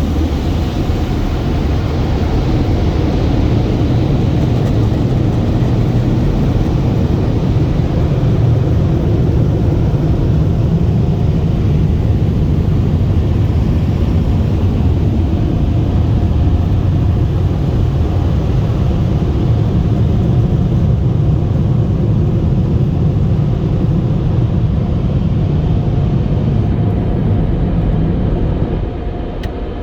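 Tunnel car wash dryer blowers running with a loud, steady rush and rumble; the noise drops off shortly before the end as the car leaves them.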